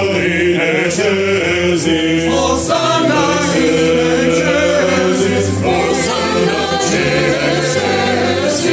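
Mixed choir of men and women singing the Sanctus of a Latin mass setting with orchestral accompaniment, heard close up from among the singers, over sustained low notes.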